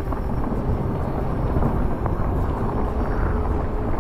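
Mountain bike rolling fast down a wet dirt trail: steady rumble of tyres and bike over the ground, with wind buffeting the action-camera microphone.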